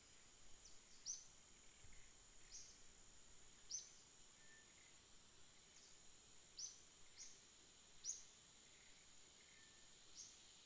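Faint natural ambience: a steady high insect drone with short high bird chirps every second or two, the louder ones at about one, four, six and a half and eight seconds in.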